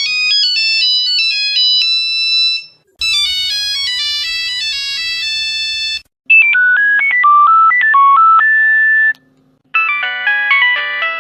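Nokia mobile phone ringtones played one after another in different versions, each about three seconds long with short gaps between. A high, thin stepping melody comes first, then a fuller one, then a lower melody over a steady hum, and near the end a richer version with many notes at once.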